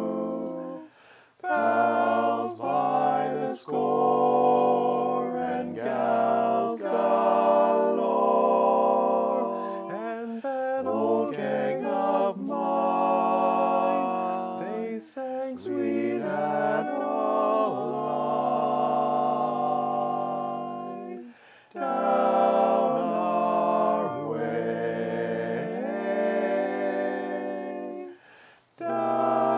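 Male a cappella quartet singing in four-part close harmony, the phrases broken by short pauses.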